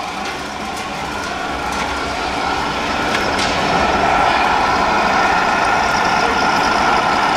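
Steady truck-engine sound from a radio-controlled MAN heavy-haulage tractor unit driving slowly with a loaded lowboy trailer, over the general din of the hall. It grows louder over the first few seconds.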